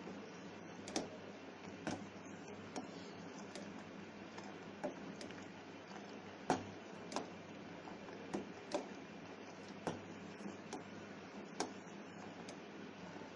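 A spoon tapping and clinking against a cooking pan while stirring milk, light sharp clicks at uneven intervals about once or twice a second, over a faint steady background noise.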